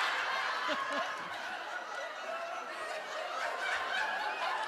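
Audience laughing, strongest at first and easing off a little after a second or two.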